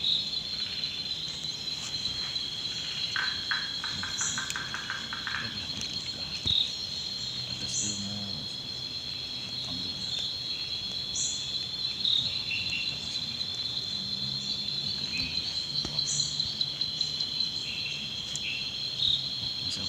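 Night chorus of crickets and other insects: a steady high trill, with a short higher chirp repeating every three to four seconds and a quick run of about ten clicking pulses a few seconds in.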